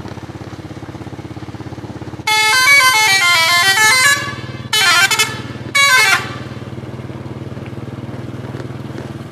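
Indonesian bus 'telolet' musical air horn playing a quick run of changing notes for about two seconds, then two short blasts, the last one bending down in pitch as it cuts off. A vehicle engine idles steadily underneath.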